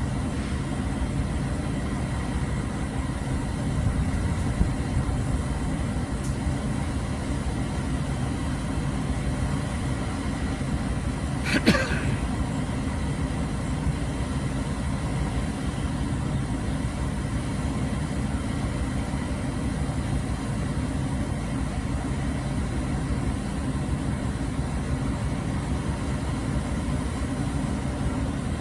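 Crane truck's engine running steadily with a low rumble. A single sharp knock comes about twelve seconds in.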